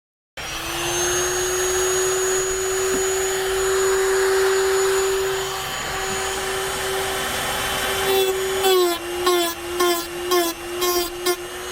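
Dremel rotary tool running at high speed with a steady whine as it cuts aluminum sheet. In the last few seconds the whine dips and pulses repeatedly, about twice a second, as the bit bites into the metal and is eased off.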